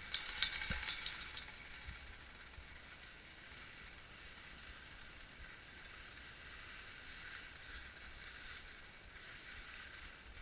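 Skis sliding over packed snow while being towed uphill on a T-bar: a steady scraping hiss, louder for about the first second and a half.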